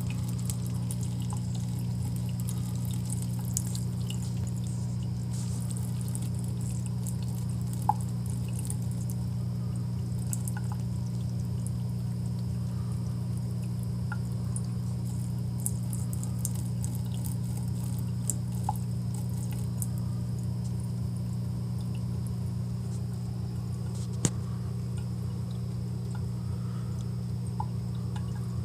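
A thin stream of water running from a bathroom faucet into the sink, with faint irregular splashing ticks as a cat laps at the stream. A steady low hum runs under it, and two sharper clicks come about 8 and 24 seconds in.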